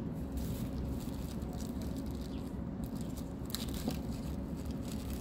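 Light clicks and small handling sounds as screws are tried in the antenna base, over a steady low background rumble. A couple of sharper clicks come about three and a half seconds in.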